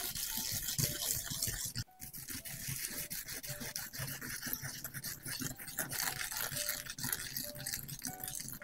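A cucumber being grated on a ceramic grater: quick repeated scraping strokes of the flesh over the grater's teeth, with a brief pause about two seconds in. Faint music notes underneath.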